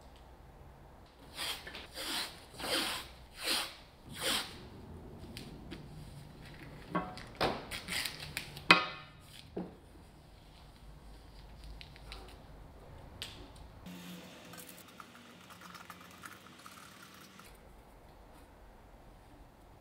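Masking tape being pulled off the roll in short tearing rips, about five in quick succession, then several more a few seconds later, one with a fast rippling chatter as the tape unrolls. Later comes a quieter rubbing for a few seconds as the laid tape is worked down by hand.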